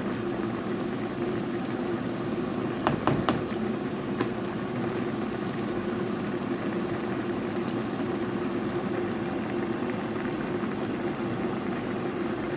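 Chicken curry with milk bubbling steadily as it simmers in a wok-style pan, with a few sharp clicks about three to four seconds in.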